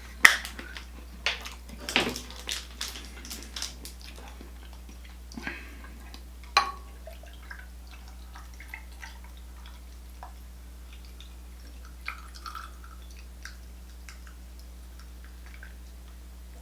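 A drink bottle being opened and poured: several sharp clicks and knocks, then liquid splashing and dripping about five to seven seconds in, followed by scattered faint ticks.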